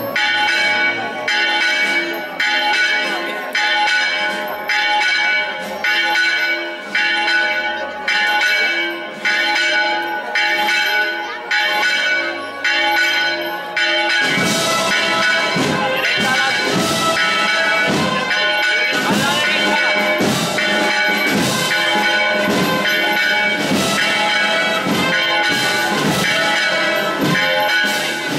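Church bells ringing. For the first half, strokes come about once a second, each left ringing. About halfway through, they change to a faster, busier peal.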